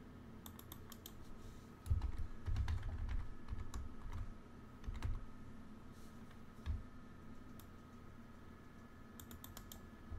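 Computer keyboard typing: irregular keystrokes, with a run of heavier, thudding keypresses about two to five seconds in. A faint steady electrical hum sits underneath.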